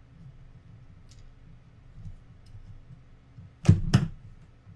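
Hands working small parts at a tabletop: low handling noise and a few light clicks, then two sharp clacks about a third of a second apart near the end as a screwdriver is picked up off the table.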